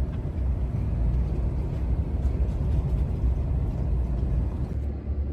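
Truck engine running steadily, a continuous low rumble with an even hiss above it.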